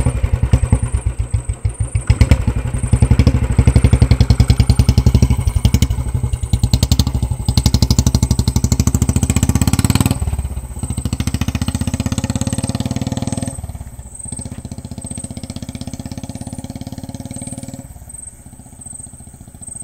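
Royal Enfield Bullet single-cylinder motorcycle pulling away and riding off. Its engine's even firing beat is loud for about the first ten seconds, then fades in steps as the bike moves into the distance.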